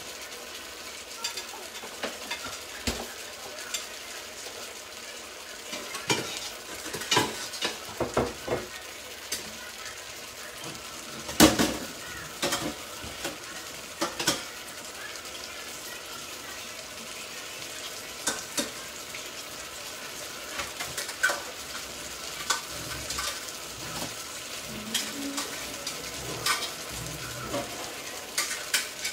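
Two pans on the stove, a tomato sauce with gurnard and cuttlefish and a fish broth, sizzling and simmering with a steady hiss. Scattered clinks and knocks of utensils against pots and dishes come throughout, the loudest about eleven seconds in.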